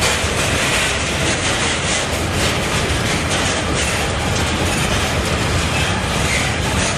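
Freight train of covered hopper wagons rolling past at speed: a steady, loud rumble of steel wheels on rail, with clacks over the rail joints.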